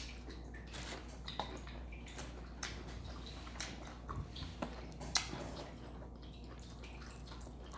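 Close-up eating sounds: wet chewing, with scattered mouth clicks and smacks, over a steady low hum.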